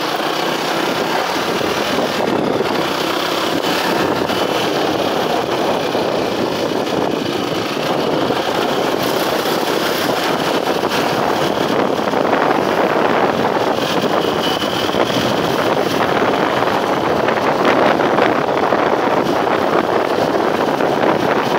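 Motorcycle running while being ridden along a street, its engine mixed with wind rushing over the microphone, growing a little louder toward the end.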